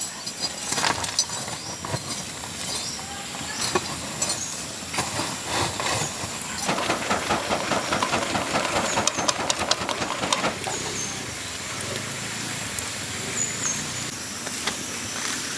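Burning firewood and embers being raked out from under a large biryani pot, with repeated scraping, knocking and crackling that is densest in the middle.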